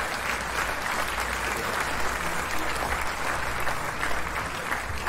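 Crowd applause: many hands clapping together, steady and dense.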